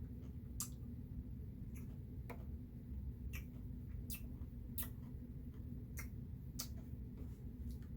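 Quiet eating sounds from a spoonful-by-spoonful tasting of a Blizzard: small sharp clicks and taps, about one a second and irregular, over a low steady hum.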